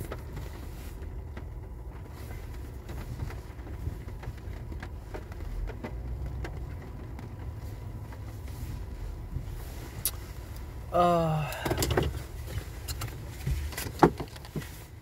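Steady low rumble of a car heard from inside the cabin. About 11 seconds in comes a short wordless vocal sound, and near the end a sharp knock.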